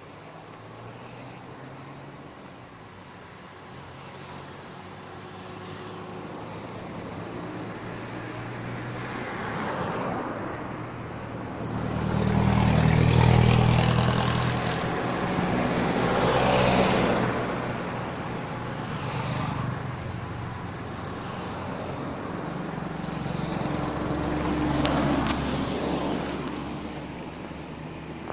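Road traffic driving past: engine rumble and tyre noise swelling and fading as vehicles, a box-back pickup truck among them, go by one after another. The loudest pass comes about twelve seconds in, with smaller ones a few seconds later and again near the end.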